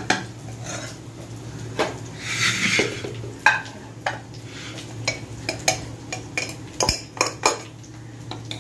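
Steel serving spoon clinking and scraping against the metal pressure cooker pot and a plate as cooked biryani rice is scooped out and served: a string of sharp clinks, with a short scraping rustle about two and a half seconds in.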